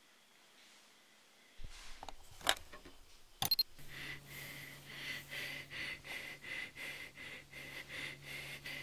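A person breathing fast in short, even puffs, about two a second, after a few sharp clicks. A faint steady hum and high tone sit underneath.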